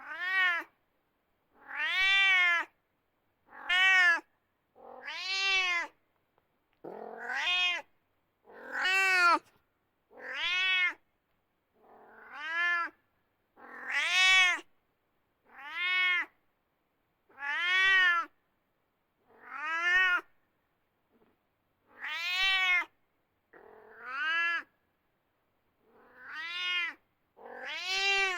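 Domestic cat meowing over and over, about fifteen separate meows, one every second and a half to two seconds with silence between. Each meow is a single call that rises and then falls in pitch.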